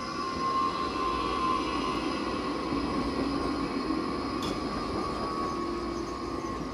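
Electric city tram running on street track at close range, with a steady high whine over the rolling noise.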